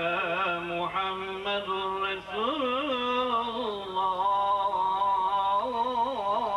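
A man's solo voice chanting the salawat, the Arabic devotional salutation on the Prophet, in a long melismatic line: held notes that turn and waver in ornaments, with no clear words.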